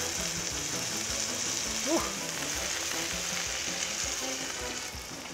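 Burger patties and hot dogs sizzling steadily on a hot flat-top griddle, with cheese melting on the burgers under a steel dome. A short rising tone sounds once about two seconds in.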